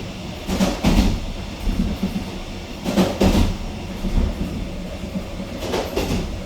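Wheels of a Korail Nuriro electric multiple-unit train clattering over rail joints, heard inside the passenger car: a pair of knocks about every two and a half to three seconds over a steady low rumble.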